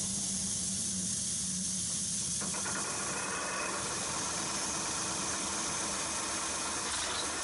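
Newly built Mercedes-Benz truck diesel engine running on a factory test bench for its first start: a steady hiss over a low hum, with more engine noise joining about two and a half seconds in.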